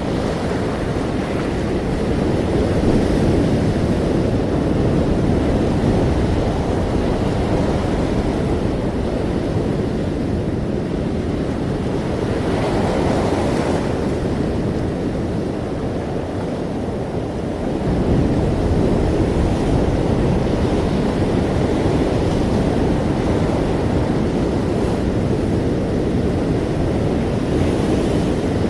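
Ocean waves and surf breaking continuously in a deep, steady wash, swelling a little every few seconds.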